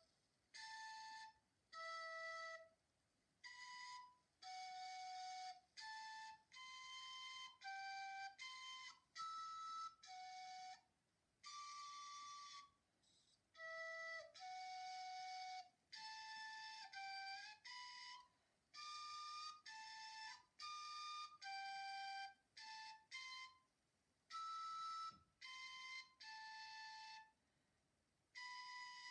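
Quiet outro music: a single melody line of short, separate notes with brief pauses between phrases.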